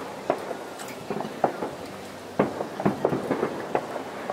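Firecrackers going off: about seven sharp pops at irregular intervals, roughly two a second, the loudest about two and a half seconds in, over a steady outdoor hiss.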